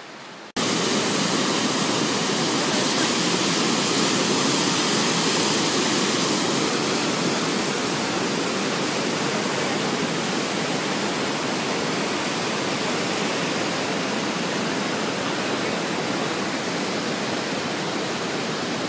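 Rushing whitewater of a rocky river in a canyon below the falls: a loud, even roar of water that starts abruptly about half a second in.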